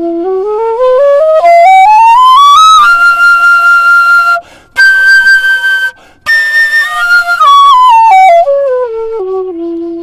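Bansuri bamboo flute running quickly up a scale from its lowest note and holding three high notes, broken by two short breaths about four and six seconds in. It then runs back down to the bottom note, showing its two-and-a-half-octave range.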